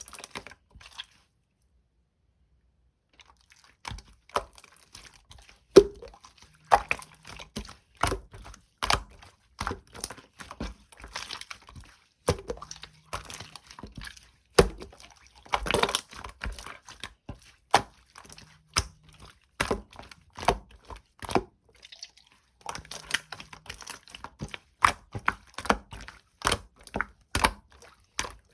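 Green slime being squished, stretched and poked by hand, giving irregular wet clicks and sticky pops several times a second, with a few louder pops. A brief pause of silence comes near the start.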